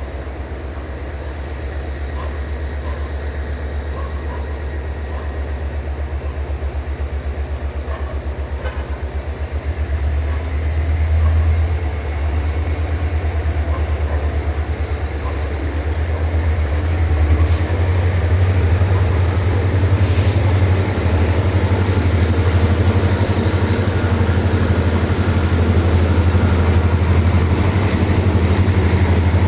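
Diesel train engine running with a deep, steady throb that grows louder about ten seconds in and again around seventeen seconds.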